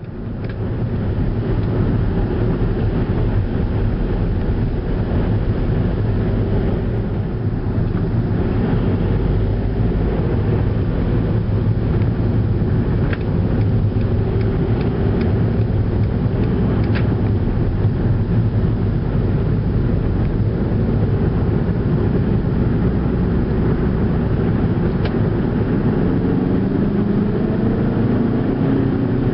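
Skoda Octavia driving, with a steady low hum of engine and road noise and a few faint clicks. Near the end the pitch rises as the car picks up speed.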